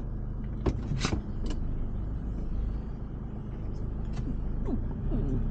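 Campervan engine running steadily, heard from inside the cab, with a few sharp clicks or knocks about a second in.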